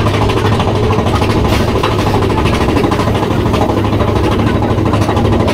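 Big Thunder Mountain Railroad mine-train roller coaster running along its track: a steady, loud rumble and rattle of the train's wheels on the rails.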